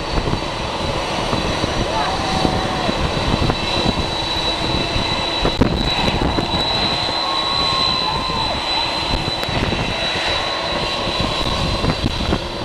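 Boeing 747 jet engines at takeoff power: a loud, steady rush of jet noise with a high whine above it.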